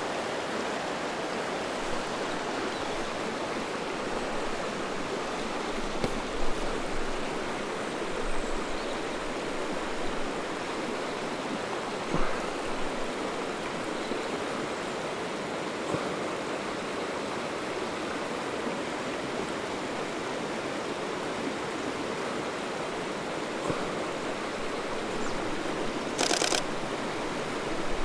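Steady rush of the River Dart flowing nearby. Near the end comes a short, rapid burst of shutter clicks from a Nikon D500 firing in continuous mode.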